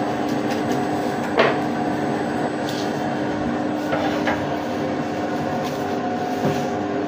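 Steady machine hum of kitchen equipment, with a few sharp knocks and clatters as a pizza tray and serving board are handled. The loudest knock comes about a second and a half in.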